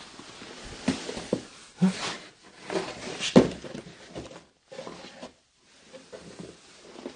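Cardboard boxes being handled and rummaged through: cardboard and paper rustling and scraping, with several sharp knocks and thumps, the loudest about three and a half seconds in.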